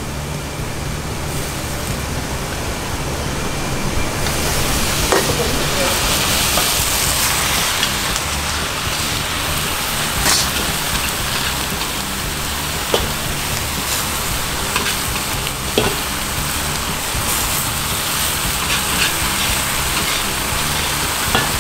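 Claypot of braised bean curd sticks and fish fillet sizzling hard over a gas flame, a dense hiss that grows stronger about four seconds in, with a few sharp pops. Under it runs the steady low roar of the restaurant wok burner.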